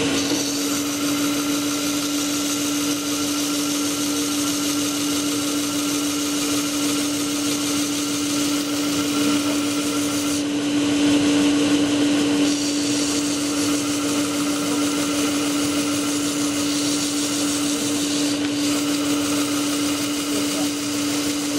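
Disc sander running with a steady motor hum while a small wooden peg is pressed against the spinning abrasive disc, the rasping of the sanding shifting in tone a few times as the peg is worked.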